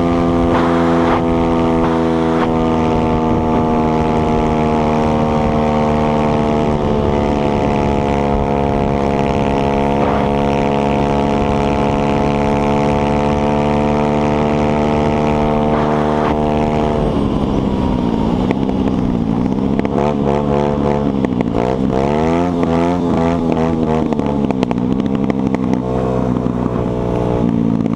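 Lifan 150cc air-cooled single-cylinder dirt bike engine running at a steady cruising speed. About two-thirds of the way in the revs drop suddenly, then fall and rise again several times as the throttle is eased off and opened.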